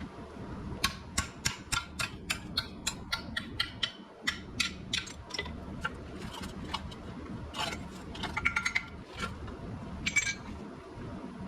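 A quick run of light metallic clicks, about three or four a second, then a cluster of ringing metal clinks and one last ringing clink near the end.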